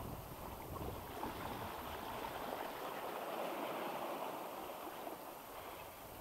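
Sea water washing against the shoreline rocks, a steady wash that swells in the middle and eases off again, with wind buffeting the microphone.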